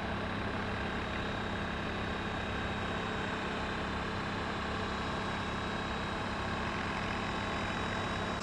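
A steady mechanical hum with several constant tones, like a small motor running without change.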